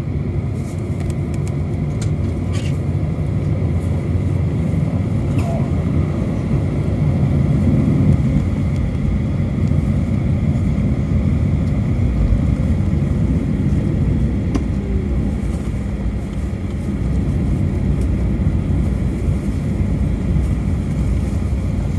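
Steady low rumble inside a Boeing 737's cabin during taxi, from the CFM56 engines at taxi power and the aircraft rolling along the taxiway.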